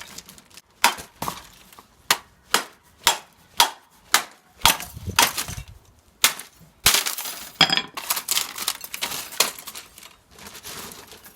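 Sharp metallic clicks and clinks, roughly two a second, then a denser run of clattering about seven seconds in: scrap copper and aluminium windings being worked apart by hand.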